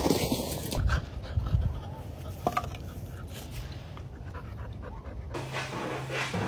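A dog panting, with a few short knocks. In the last second or so it gives way to a steady low hum.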